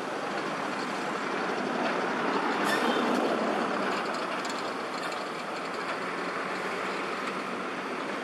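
Steady vehicle noise, swelling a little two to three seconds in.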